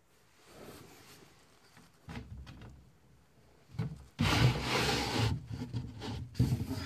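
A hidden bed-base storage drawer on a Blum Tip-On push-to-open runner system being pushed to release, clicking just before the middle, then sliding out on its runners with a loud rubbing noise. A sharp knock comes near the end.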